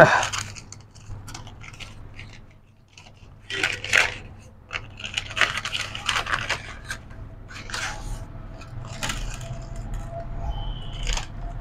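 Small parts and tools handled on a workbench: scattered clicks, taps and scrapes as components are picked up and set down, with a faint steady hum in the second half.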